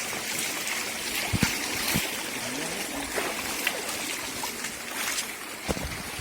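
Steady rush of flowing stream water, with a few light knocks scattered through it.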